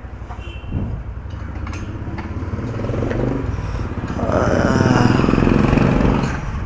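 Motorcycle engine running, growing louder about four seconds in and easing off near the end.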